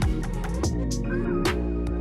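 Electronic background music with a steady beat and sustained synth notes.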